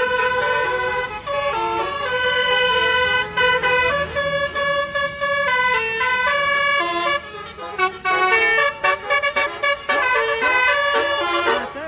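Basuri telolet horn playing a quick melody of stepped, pitched notes, with a short break about seven and a half seconds in.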